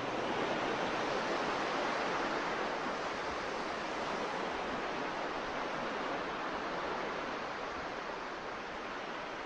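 Steady rushing noise of wind and sea on a cruise ship's open deck.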